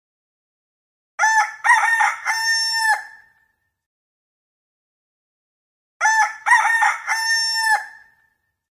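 Rooster crowing twice, about five seconds apart; each crow lasts about two seconds and ends in a long held note.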